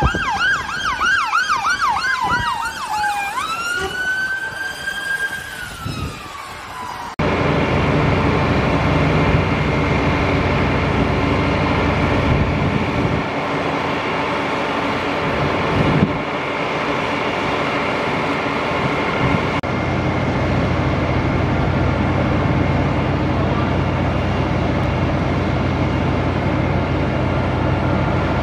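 A fire engine's siren sounding a fast yelp, then switching to a slower rising and falling wail. About seven seconds in it cuts abruptly to the steady drone of fire engines' diesel engines running at the scene, with a single brief knock near the middle.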